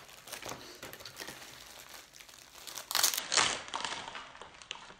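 Clear plastic bag crinkling and rustling as it is handled and shaken, with a louder burst of rustling about three seconds in.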